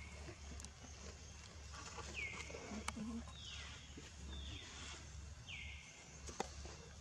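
A string of short, high-pitched animal calls, each sliding down in pitch and then holding briefly, about five times, over a low steady rumble. Two sharp clicks sound about three seconds in and near the end.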